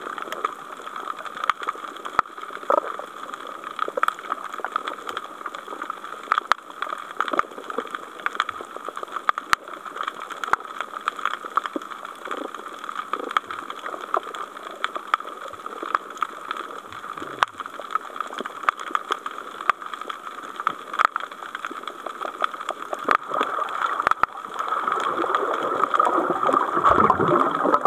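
Underwater ambience picked up through a camera housing: a steady hiss with many scattered sharp clicks and crackles, swelling into a louder rushing near the end.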